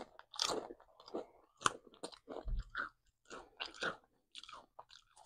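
A person chewing a mouthful of Rap Snacks honey-barbecue truffle potato chips: irregular crisp crunches that thin out near the end.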